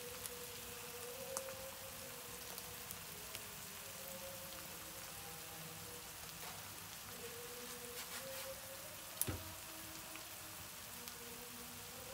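Eggs and chopped peppers frying in a pan: a steady sizzle with scattered small crackles and pops, and one sharper pop about nine seconds in.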